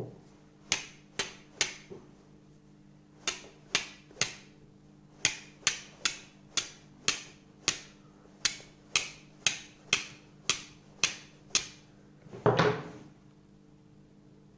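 Flint and steel being struck: a C-shaped steel striker scraping down a hand-held flint with charcloth on it to throw sparks onto the cloth. The sharp strikes come three at a time twice, then in a steady run of about two a second, followed near the end by one longer, louder noise.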